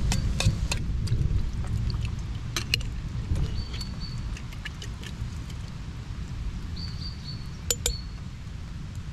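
Metal utensils clinking against camp cookware: a spoon in a stainless steel cup, then a fork against a glass jar and a steel frying pan as meat is worked out of the jar. There are a handful of sharp clinks, the loudest pair near the end, over a steady low rumble, with a few short high bird chirps.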